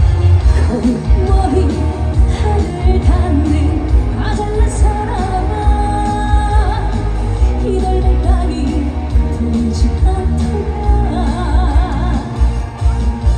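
Korean trot song performed live: a female singer's voice with wavering vibrato over a loud backing track with heavy bass, played through the stage PA.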